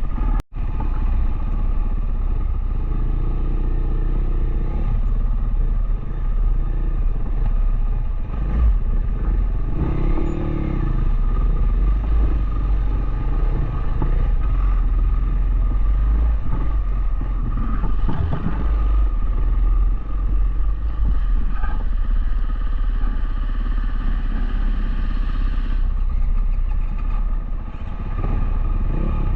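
Dual-sport motorcycle engine running steadily while riding. The sound cuts out briefly about half a second in.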